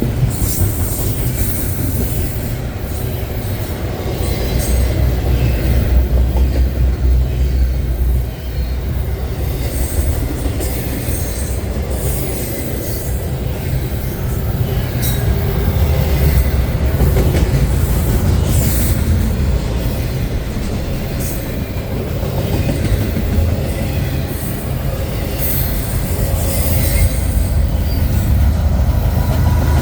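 Intermodal freight cars rolling past at moderate speed: a steady low rumble from the wheels and trucks, with frequent short high squeals and screeches from wheel flanges on the rail.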